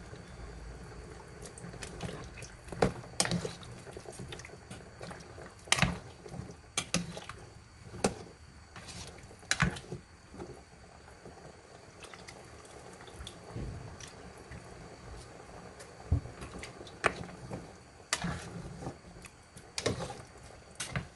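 Thick coconut milk pours from a carton into a pot of goat curry, then a ladle stirs the curry, knocking and scraping against the metal pot in irregular clinks.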